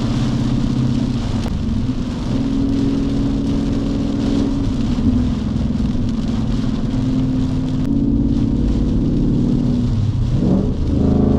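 Ford Mustang GT's 5.0-litre V8, fitted with an MBRP cat-back race exhaust, droning steadily from inside the cabin while driving, over the hiss of heavy rain and road spray on the car. The engine note steps up and down a few times, and it dips and climbs again about ten seconds in.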